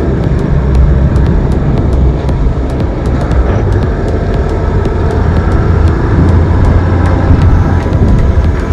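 4x4 driving on a soft sand track, heard from a camera mounted low beside the front wheel: a loud, steady low rumble of tyre and driving noise.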